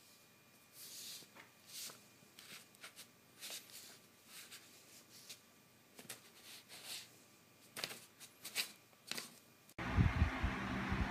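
Sheets of printer paper rustling and crinkling in short bursts as a cat's paw pats and scrapes at them. Near the end a louder low throbbing hum cuts in suddenly.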